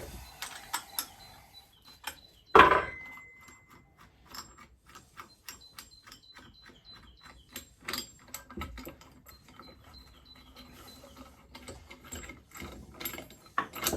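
Small metallic clicks and clinks of tools and parts as a homemade bolt-and-washer bush press is undone and taken off a suspension arm, with one louder knock about two and a half seconds in.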